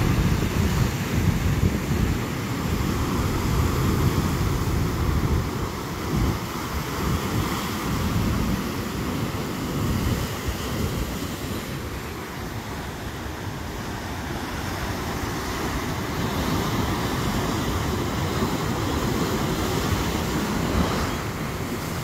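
Ocean surf breaking and washing over shoreline rocks, a continuous rushing wash that eases a little about halfway through and builds again. Wind buffets the microphone as a low rumble underneath.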